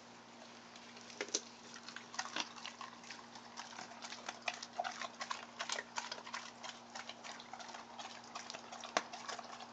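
Great Dane puppy chewing raw chicken backs, the bones crunching and cracking in a run of irregular, fairly faint clicks.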